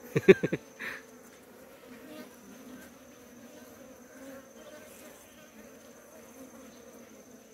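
Steady buzzing hum of a mass of honeybees crowding an open brood comb frame, after a brief loud voice-like sound at the very start.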